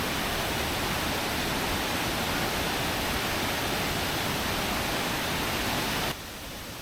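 Kuang Si waterfall rushing in high flood: a steady, dense wash of falling water, which drops abruptly quieter near the end.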